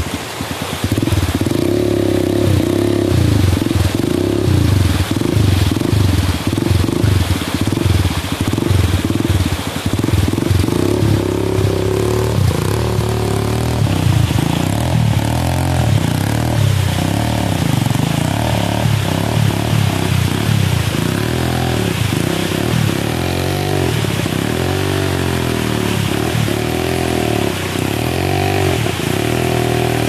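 Dirt bike engine revving up and down over and over as the bike is pushed through a river crossing, with rushing, splashing water underneath.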